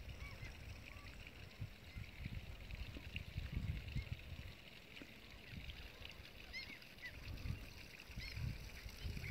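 Wind buffeting the phone's microphone in uneven low gusts, with faint high bird calls now and then, a pair of them about two-thirds of the way in and near the end.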